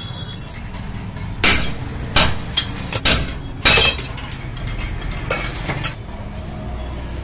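Sharp metal clinks and knocks, about five loud ones in a couple of seconds, as steel wire spokes are worked loose from a TVS 50 moped's wheel hub. A steady low hum runs underneath.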